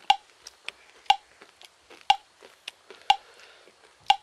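Clock ticking once a second: five sharp, evenly spaced ticks, each with a short ring, and fainter clicks between them.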